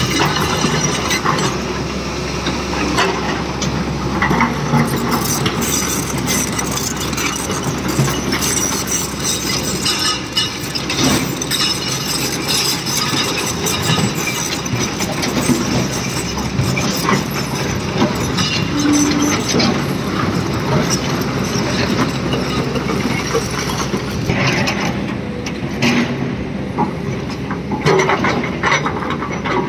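Excavator loading rock into a tipper truck: the diesel engine runs steadily under a continuous clatter of stones and metal, with many sharp knocks and clinks.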